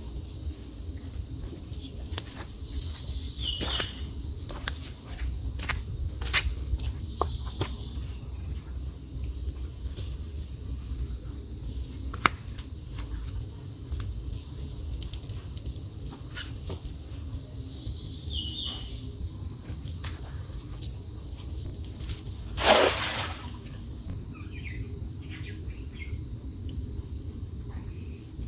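Steady high-pitched insect drone, cricket-like, over a low outdoor rumble, with scattered clicks and a brief loud rush of noise about 22 seconds in.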